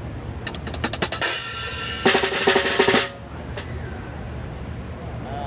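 Drum kit played in a fast fill: a flurry of rapid hits for about two and a half seconds, then one more single hit about half a second later.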